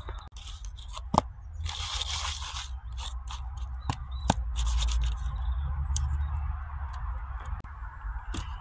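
Courgette slice scraped and rubbed around a plastic plate to coat it in salt and pepper: two spells of scraping, about two seconds in and about five seconds in, with a few sharp clicks of the slice and plate, over a low steady rumble.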